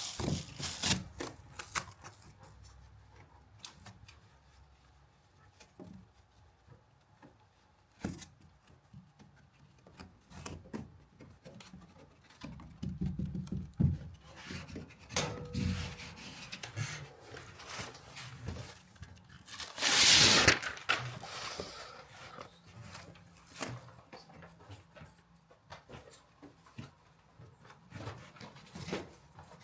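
Scattered handling noises: rubbing, tearing and light knocks, with one loud tearing, rushing burst about twenty seconds in.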